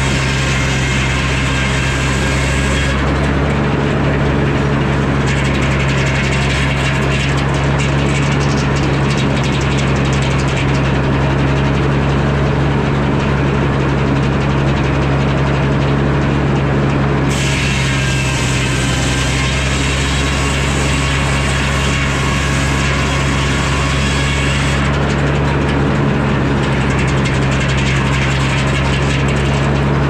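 Engine-driven Frick sawmill running at steady speed, its engine's drone unbroken throughout. A high hiss over it thins out about three seconds in and comes back for some eight seconds from about seventeen seconds in.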